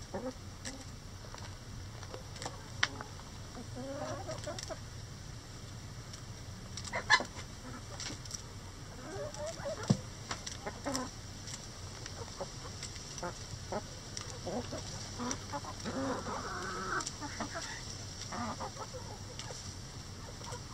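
Flock of hens and roosters clucking, busiest near the end. A few sharp taps, the loudest about three, seven and ten seconds in.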